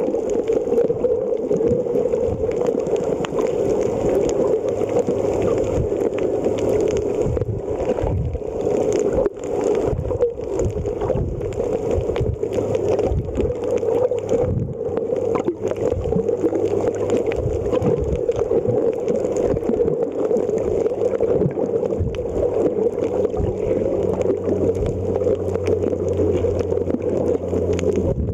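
Muffled underwater noise picked up by a submerged camera, a steady rushing sound with irregular low knocks and bumps. A steady low hum joins it and grows stronger in the last several seconds.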